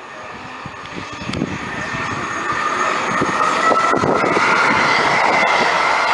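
Class 220 Voyager diesel-electric train approaching through the station, growing louder over the first few seconds and then holding. Its high whine rises slightly in pitch as it nears.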